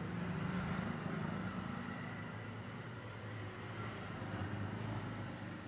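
Steady low hum with even background noise, no distinct events.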